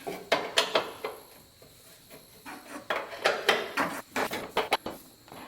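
Irregular metal clinks and scrapes of a hand wrench working a half-inch bolt and nut, with a brief lull before a denser run of clicks in the second half.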